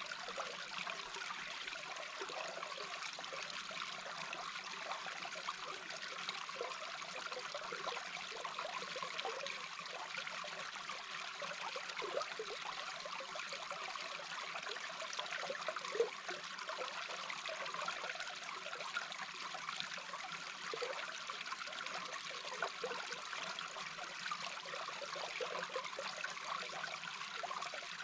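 A small babbling brook recorded underwater: a steady rush of flowing water with frequent small bubbling gurgles.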